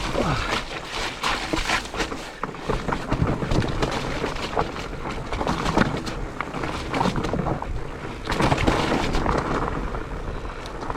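Mountain bike rolling over a rough forest trail: continuous tyre and rushing noise with frequent knocks and rattles from the bike as it hits roots and rocks.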